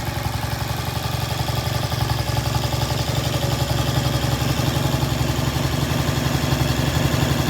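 1970 Triumph T100's 500 cc parallel-twin engine idling steadily, a little louder from about two seconds in.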